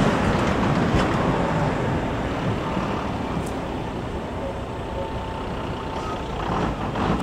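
Tatra KT8D5 articulated tram pulling away from a stop and running off along the track, its running noise slowly fading, with a faint steady whine through the middle.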